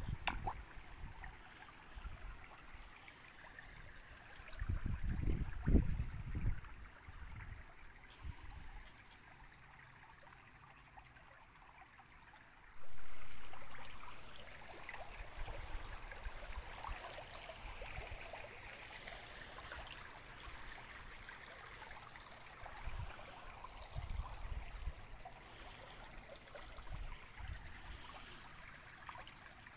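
Shallow stream water running and trickling around wading boots, with a few low gusts of wind buffeting the phone's microphone early on. About halfway through the water sound jumps suddenly louder, then eases off over a couple of seconds.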